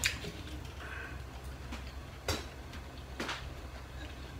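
A few light clicks of a metal fork against a ceramic rice bowl and plate while eating: one at the start, then two more about two and three seconds in, over a low steady hum.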